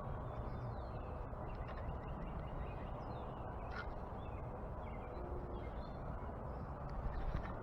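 Backyard birds chirping faintly, with short scattered calls and a few quick sweeps, over a steady low background hum.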